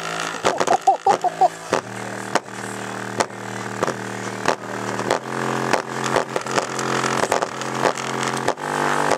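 Boston 6x9 car speaker overdriven by an amplifier, playing a loud, distorted, droning bass tone with crackling clicks throughout as it is pushed toward blowing, and a few brief high squeaks about a second in.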